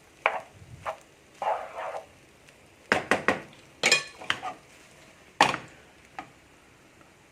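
Utensils knocking and scraping against a pan and dishes: a string of separate clinks with a short scrape near two seconds in, one clink ringing briefly about four seconds in.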